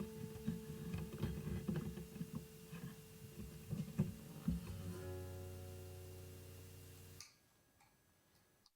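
Acoustic guitar heard through its pickup, quietly picked with scattered string clicks, then a held chord ringing and fading. The chord cuts off abruptly about seven seconds in.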